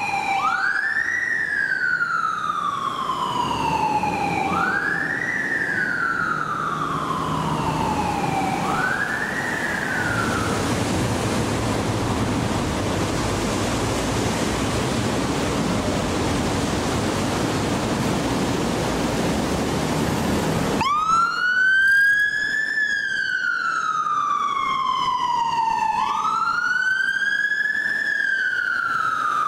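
Fire engine siren wailing: each sweep rises quickly and falls slowly, repeating about every four seconds. It stops about ten seconds in, leaving a steady rumbling noise. About twenty-one seconds in, the rescue van's siren starts the same wail.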